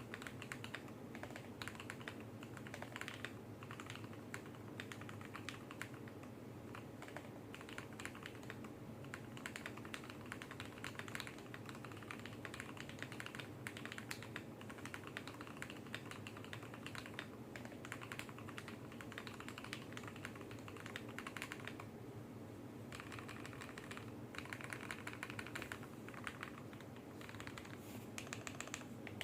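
Custom 65% mechanical keyboard with lubed, filmed Tecsee Carrot linear switches on a brass plate in an aluminium case, typed on continuously in quick, irregular keystrokes. The typing eases briefly about two-thirds of the way through, then picks up again.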